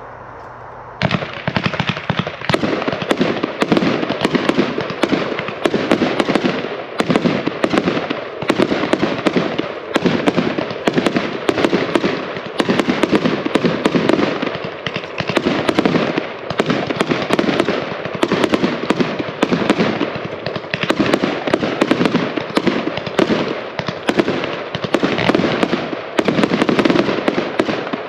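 An 81-shot, 1,000-gram consumer fireworks cake firing: a dense, continuous barrage of shots that starts about a second in and comes in rapid volleys.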